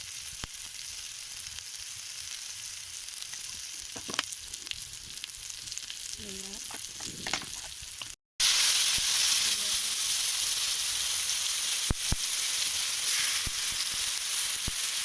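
Food sizzling as it fries in hot oil in a pan, a steady hissing with a few light clicks. About eight seconds in the sound drops out for a moment, then the sizzle comes back louder.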